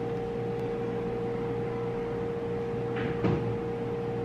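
A steady background hum with a constant mid-pitched tone, with a soft brief rustle about three seconds in.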